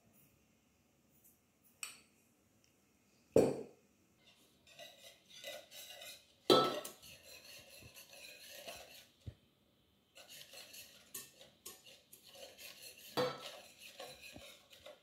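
Metal balloon whisk beating egg and sugar in an enamel bowl, its wires rattling and scraping against the bowl in a quick rhythm, with a brief pause about ten seconds in. A few sharper knocks against the bowl stand out, the loudest about three and a half and six and a half seconds in.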